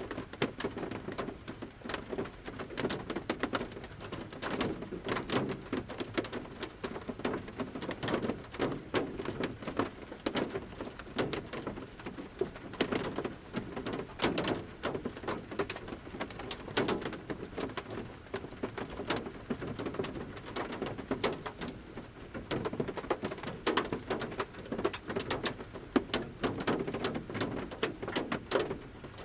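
Large raindrops falling from a forest canopy onto the roof of a camper van, heard from inside: many sharp taps at irregular intervals over a soft, steady rain patter.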